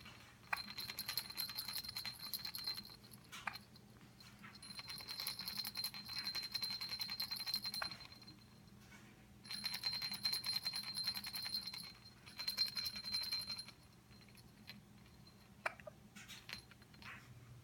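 A jingle-bell baby rattle shaken in three long bouts of jingling, each a few seconds long, with short pauses between.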